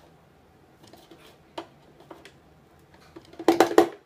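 Hard plastic clicking and knocking as the juicer's pulp container is worked loose and pulled off, with a few light clicks and then a quick cluster of loud knocks near the end. The juicer's motor is not running.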